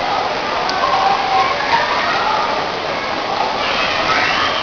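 Monsoon rain falling steadily on buildings, an even hiss.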